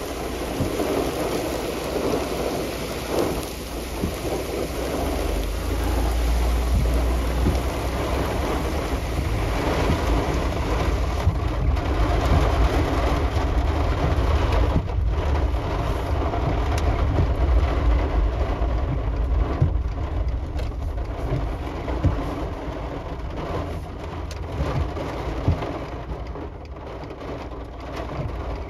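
Thunderstorm: steady heavy rain with low rolls of thunder that swell about a quarter of the way in and again past the middle, and scattered sharp taps of drops hitting a surface.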